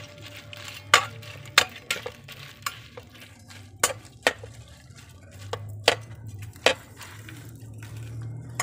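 Metal spatula stirring and scraping dried pasilla chiles in an aluminium pot, knocking against the pot's side in irregular sharp clinks. Under it the chiles sizzle faintly in hot oil.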